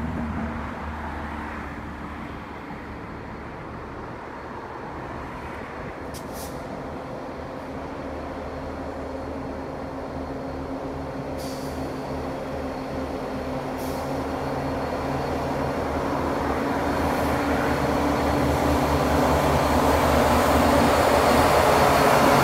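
CN diesel-electric freight locomotives hauling an intermodal container train, their engines running with a steady low drone that grows steadily louder as the train approaches.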